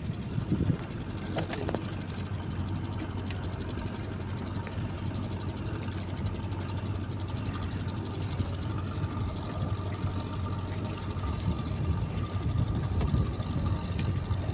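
An engine running steadily with a low, even hum. A short high-pitched beep-like tone sounds in about the first second and a half.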